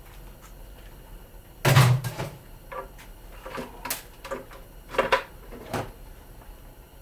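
Plastic parts of a cool-mist humidifier knocking and clicking as it is handled and pulled apart: one heavy knock about two seconds in, then several sharper clicks and taps.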